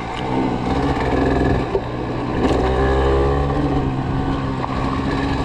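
Yamaha TDR 125's two-stroke single-cylinder engine running as the motorcycle is ridden off-road, the revs rising and falling.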